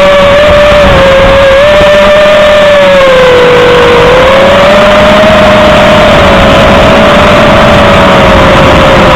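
A 5-inch FPV freestyle quadcopter's brushless motors and propellers whine loudly. The pitch wavers with throttle, dipping about three to four seconds in and then rising again.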